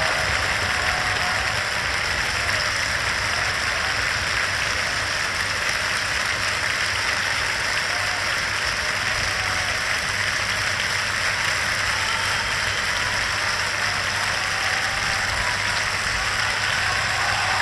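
A large concert-hall audience applauding steadily, calling for an encore, heard on an old 1953 broadcast recording.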